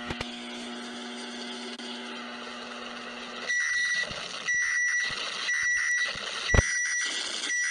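Emergency-alert-style electronic alarm tones: a steady buzzing tone, then about three and a half seconds in, a high beep repeating about once a second, five times. A sharp click sounds about two-thirds of the way through.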